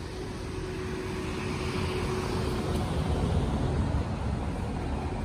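Motor vehicle going past, a steady rush of engine noise that swells to its loudest about three to four seconds in and then eases a little.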